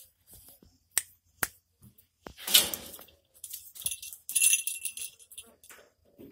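Two sharp clicks, then a loud scraping rattle and a run of bright metallic jingling as dogs move about the kennel: the small bell and tag on a dog's collar jingling.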